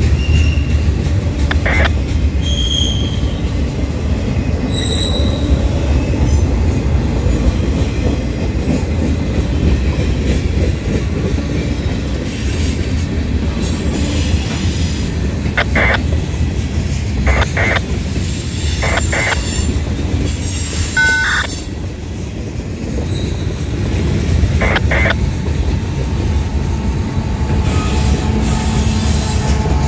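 A CSX freight train of boxcars and covered hoppers rolling past at close range: a steady low rumble of wheels on rail, with short high wheel squeals now and then. Near the end the steady hum of a diesel locomotive within the train comes in.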